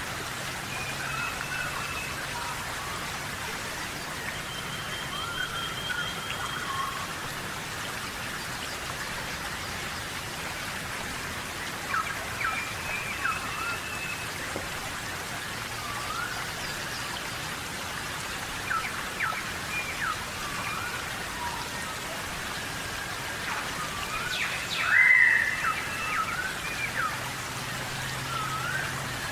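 Steady rainforest rain falling, with birds calling in short rising and falling whistles throughout, loudest about 25 seconds in.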